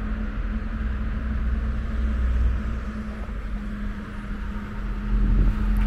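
Steady low rumble of a DB Class 1440 electric multiple unit approaching from a distance, mixed with road traffic, with a steady low hum throughout.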